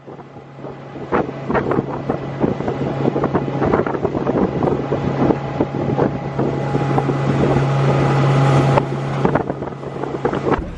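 Suzuki outboard motor running steadily under way, getting louder and then easing off about nine seconds in, with frequent irregular knocks and wind buffeting the microphone.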